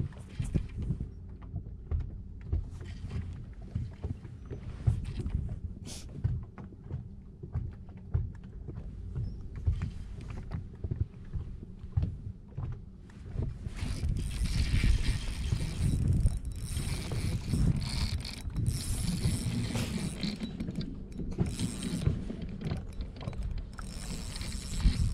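Wind buffeting the microphone over open water. From about halfway, a spinning reel's mechanism whirs as it works a hooked fish.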